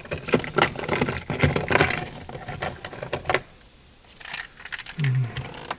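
A bunch of car keys jangling and clicking in quick rattles, with a short lull about three and a half seconds in before a few more rattles.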